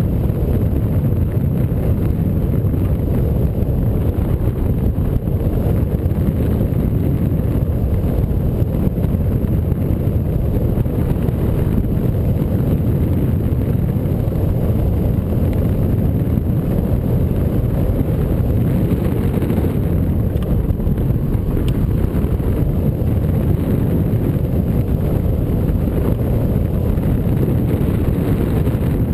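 Wind rushing over the microphone of a camera mounted on a hang glider's wing in flight: a steady low rumble.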